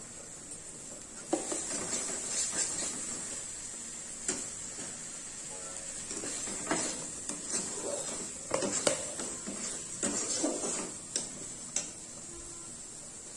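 Steel spatula scraping and stirring thick paste in an iron kadai, with irregular scrapes and sharp metal clinks against the pan, starting about a second in and stopping near the end. A steady high hiss runs underneath.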